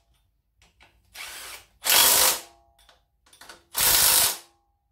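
Red cordless electric ratchet running in three short bursts, the first quieter and the other two louder, with small clicks between, as it runs down the mounting bolts of a newly fitted air-con compressor.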